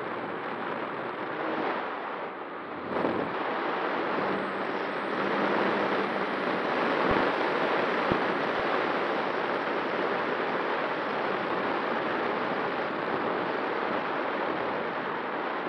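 Steady rush of wind and propeller noise from a Skua fixed-wing FPV plane in flight, picked up by a camera mounted on its wing. The level dips briefly and then jumps up sharply about three seconds in.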